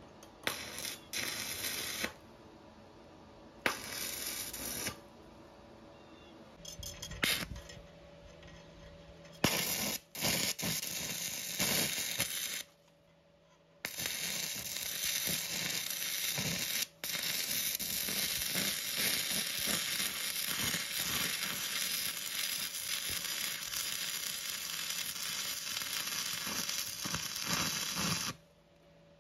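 Stick (arc) welding: the arc crackling and hissing in a few short bursts of a second or so as tack welds are struck, then longer welds, the last running steadily for about fourteen seconds and breaking off shortly before the end.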